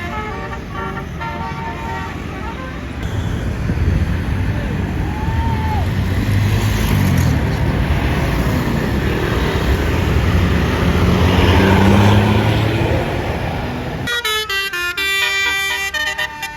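A tour bus's engine runs loudly close by, its note climbing as it pulls through. About fourteen seconds in, a Basuri telolet horn plays a fast tune of many short notes.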